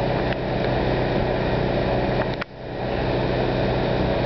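Fire engine's diesel engine running steadily at the scene. The sound cuts out sharply for a moment about two and a half seconds in, just after a couple of clicks, then comes back.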